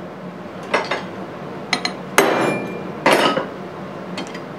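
Steel hand tools knocked and clinked against each other and the metal-topped bench as they are handled: about six separate sharp metallic knocks, a couple of them ringing briefly.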